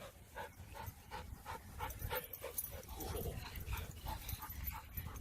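A dog panting rapidly, in short even breaths about four a second.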